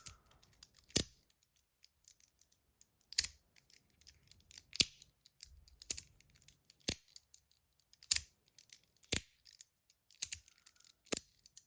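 HiFi Boy, a stainless steel and copper slider fidget, being pushed out and snapped back, giving sharp metallic clicks about once a second at uneven spacing with fainter small ticks between.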